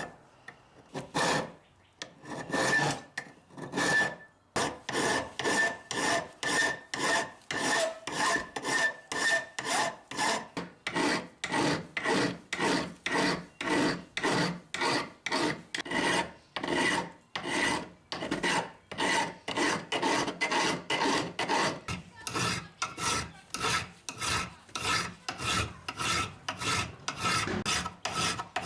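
Hand file being stroked back and forth across the steel of a small railroad-track piece, shaping it into a mini anvil: steady rasping strokes about two a second, with a faint ringing from the steel. The first few seconds hold a few separate strokes with short pauses before the steady rhythm sets in.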